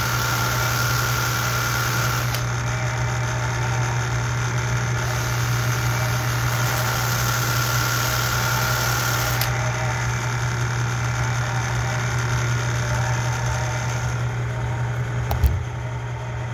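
Electric motor spinning a sanding drum, with a steady hum, while a copper rivet turned in a cordless drill is held against it to deburr and clean its bevelled head. A sanding hiss over the hum comes and goes, and there is a single knock near the end.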